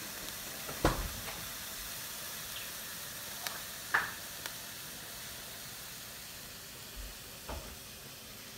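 Cauliflower and bacon sizzling in a skillet, a steady frying hiss. A few short knocks cut through it, the loudest about a second in and about four seconds in.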